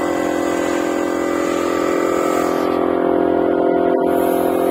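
Small portable electric air compressor running steadily, a loud, even motor hum, supplying air to the pneumatic FRL (filter-regulator-lubricator) unit.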